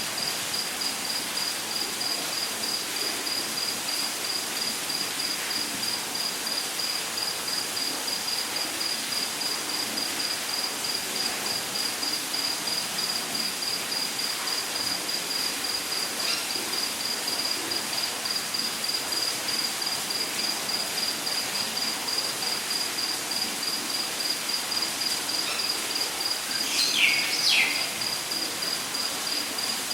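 Rainforest ambience: an insect chirps in a steady, rapid, even pulse on one high pitch over a constant hiss. About 27 seconds in, a bird gives two short falling calls, the loudest sound here.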